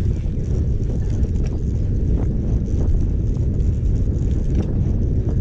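Wind buffeting the microphone of a camera carried on a moving road bike: a steady low rumble, with a few faint ticks.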